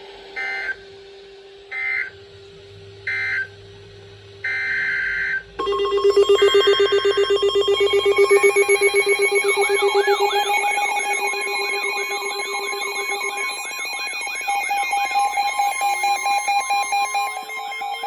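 Electronic weather-alert tones marking an incoming warning. First come four short buzzy tone bursts, the last the longest. About six seconds in a dense, loud stack of overlapping beeps and steady tones sets in, with warbling, siren-like tones joining a few seconds later.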